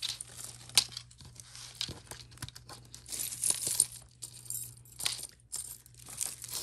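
Jewelry being handled: irregular rustling and crinkling with light clicks and clinks of metal and beads, the sharpest click about a second in.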